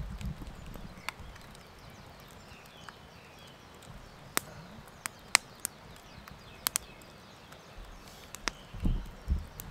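Campfire of freshly added wood burning well, giving off sharp, irregular crackles and pops, about eight spread over the span. A couple of soft low thumps come near the end.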